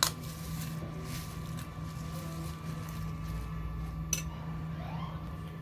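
Steel spoon stirring a dry namkeen snack mix with chutney in a ceramic plate: faint stirring with a sharp clink of spoon on plate at the start and again a little after four seconds in, over a steady low hum.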